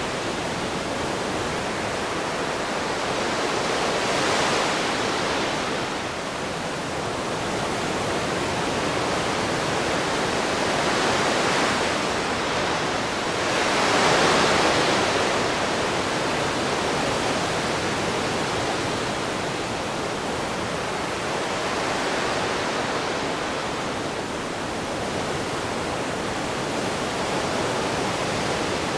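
Ocean waves washing onto a shore in a continuous hiss, with gentle swells every few seconds, the strongest about halfway through.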